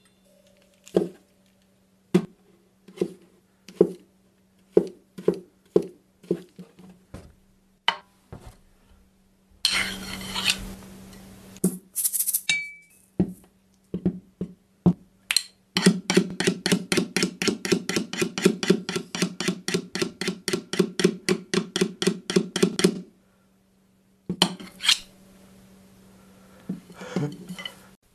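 Drum-kit and prop sound effects: separate sharp hits and clinks, a burst of noisy rattling about ten seconds in, then a fast even run of strokes, about six a second, for some seven seconds. A low steady hum sits underneath.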